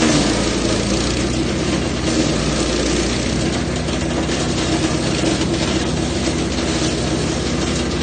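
Jansen GTS-1500E wood chipper running steadily under load while eucalyptus branches are fed in, the engine's even drone overlaid by a rough crackle of wood being chipped that comes and goes, loudest at the start.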